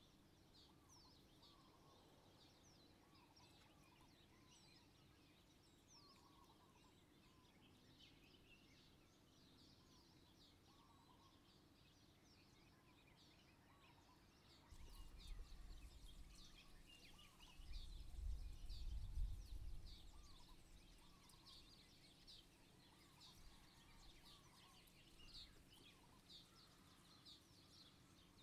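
Faint chorus of many small birds chirping continuously, with short high chirps and softer lower looping calls. About halfway through a low rumble sets in, loudest around two-thirds of the way, then fades back.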